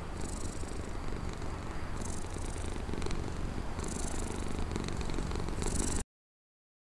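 An animal purring steadily while it is stroked, a low continuous rumble with a breathy hiss about every two seconds. The sound cuts off abruptly about six seconds in.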